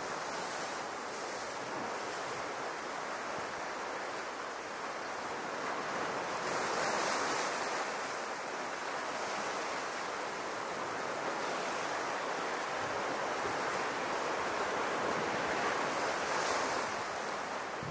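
Small Mediterranean waves washing and breaking against the rocks of a cove: a steady rush of surf that swells about seven seconds in and again near the end.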